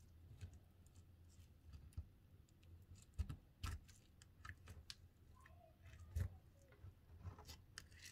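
Faint, scattered clicks and crackles of fingertips and long acrylic nails working through sprinkles on slime in a plastic tub, with a few louder clicks a little past three seconds in and again about six seconds in.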